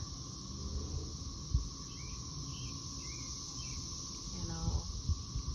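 A chorus of cicadas droning in a steady, unbroken high buzz, so loud.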